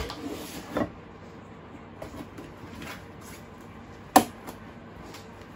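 Handling a large cardboard box: two knocks on the cardboard near the start, light scraping, and one sharp click about four seconds in as scissors cut into the box.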